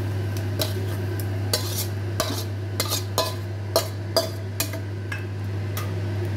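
Metal spatula scraping and clinking against a pan and a stainless steel bowl as thick cooked curry is scraped out into the bowl: a quick string of sharp metallic clinks and scrapes over a steady low hum.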